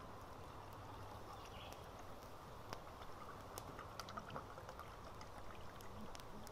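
Small wood campfire crackling with scattered sharp pops, over a soft hiss of liquid being poured from a can into a mug.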